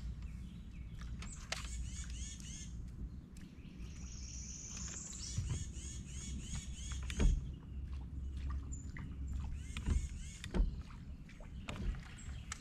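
Birds chirping in quick repeated phrases over a low steady rumble, with a few sharp knocks about seven and ten seconds in.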